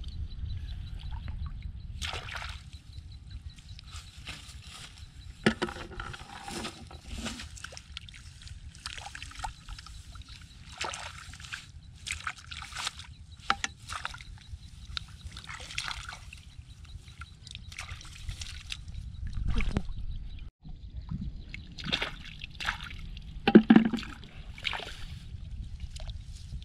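Hands sloshing and squelching through a shallow muddy puddle while feeling for fish, with irregular splashes of water and mud over a steady low rumble. A couple of louder splashes stand out, about five seconds in and near the end.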